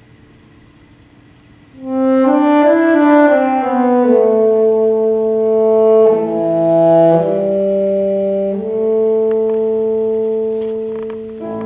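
Alto saxophone playing a slow phrase of long held notes. It enters loudly about two seconds in, after a brief hush, and the line steps up and then down.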